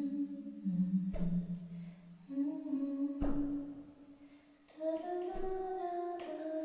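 Wordless humming of a slow melody in long held notes, with a soft, deep struck note about every two seconds beneath it.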